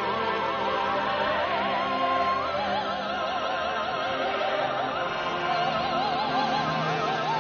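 A woman singing long high notes in an operatic soprano voice with a wide, even vibrato. The line steps up to a higher held note and later drops back down, over steady backing music.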